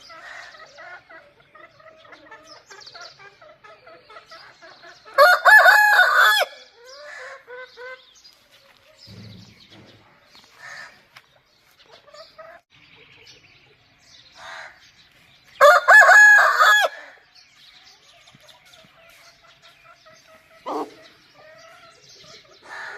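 Rooster crowing: two loud cock-a-doodle-doo crows, each about a second and a half long and about ten seconds apart, over softer clucking of chickens.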